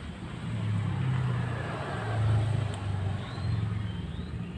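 A motor vehicle's engine running, with a low hum that swells to its loudest a little past halfway.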